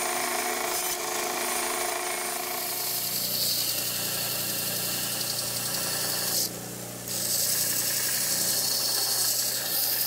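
Bandsaw running and cutting small plywood pieces: a steady motor hum with the blade working through the wood. The sound dips briefly a little past the middle.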